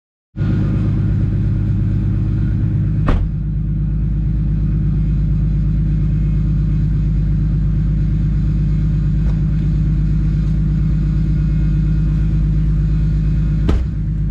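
A 1.5JZ turbocharged straight-six engine in a Lexus IS300 idling steadily. Two brief sharp clicks, about three seconds in and near the end.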